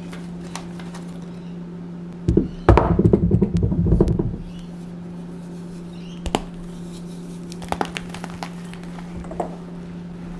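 Hands breaking and crumbling a block of gym chalk over a stone mortar. About two seconds in there is a dense burst of crunching that lasts about two seconds, followed by a few faint crackles, all over a steady low hum.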